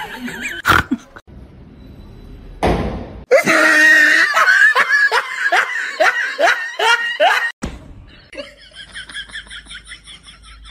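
Loud, hearty laughter: a run of about nine 'ha' syllables, each falling in pitch, lasting some four seconds, followed by a fainter, quicker run of high-pitched pulses, about five a second.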